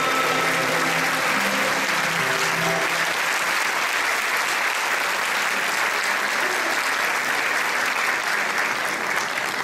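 Sustained audience applause in a concert hall. The last held notes of the Turkish classical ensemble fade out under the clapping during the first three seconds.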